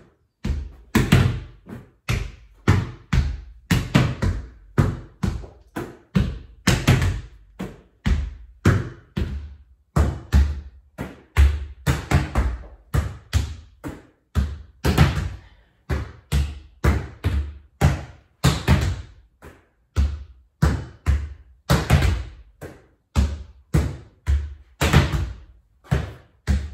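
A volleyball in continuous solo wall pepper: a steady, irregular run of sharp smacks and bounces as the ball is passed off the forearms, set, hit down into the floor and rebounds off the wall.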